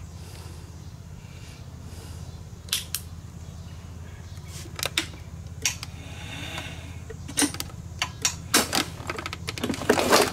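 Handling noises: scattered clicks and taps that come more often and louder in the last few seconds, as the camera is moved, over a steady low hum.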